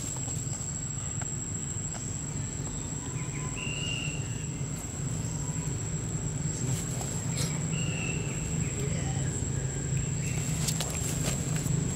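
Outdoor ambience: a steady high-pitched insect drone over a low steady hum, with a few light clicks and two short high squeaks, about four and eight seconds in.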